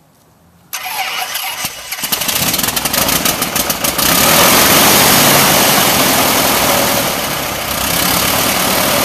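Fuel-injected 180 hp Lycoming IO-360-B1B four-cylinder aircraft engine starting for the first time: the starter cranks it for about three seconds from just under a second in, it catches about four seconds in and runs loud with the propeller turning, easing back a little near the end.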